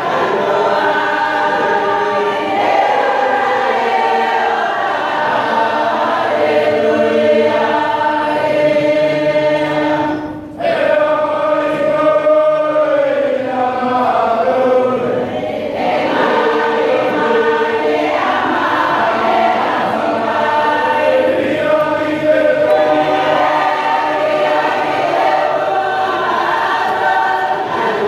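Church congregation singing a hymn together in many voices, with a brief break between lines about ten seconds in.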